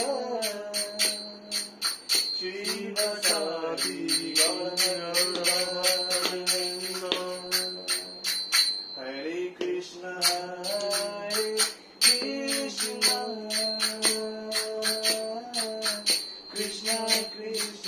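A man singing devotional kirtan in long, drawn-out notes that slide between pitches, with small metal hand cymbals struck in a steady beat of about four clashes a second. The cymbals pause briefly about nine seconds in.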